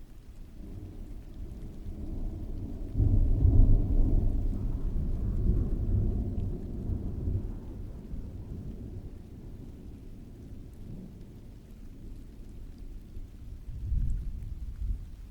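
Rolling thunder over steady rain. A deep rumble builds, breaks loudly about three seconds in and dies away over the next several seconds, and a shorter rumble follows near the end.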